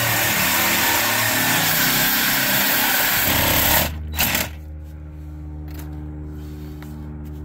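Cordless reciprocating saw cutting through a seized steel clevis bolt on a lower control arm, a dense rasping saw noise. It stops abruptly a little under four seconds in, after which a quieter steady low hum remains.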